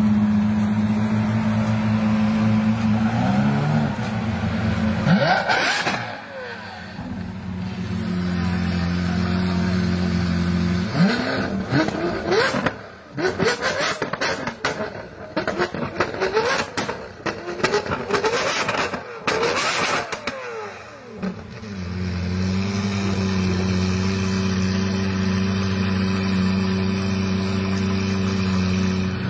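Lamborghini supercar engine idling steadily, blipped once about five seconds in, then revved hard over and over for about ten seconds, the pitch rising and falling with each rev. It settles back to a steady idle near the end.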